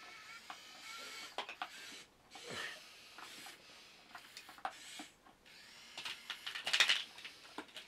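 Small electric motors of a 1/50-scale radio-controlled Komatsu PC1250-8 excavator model running in short stop-start runs, with scattered clicks; the loudest run comes near the end.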